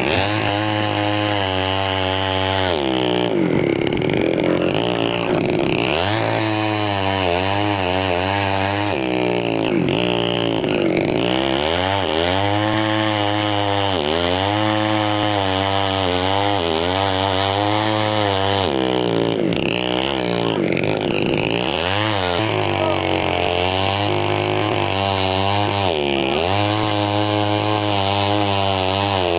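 Chainsaw running at high revs while cutting a big tree, its engine pitch repeatedly dropping under load and climbing back several times.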